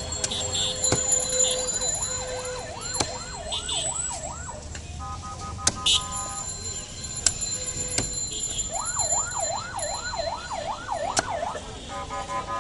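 A siren wails in a fast rising-and-falling yelp, in two bouts, with a steady horn-like tone between them. Sharp knocks of a cleaver chopping goat head and bone on a wooden chopping block come through at intervals.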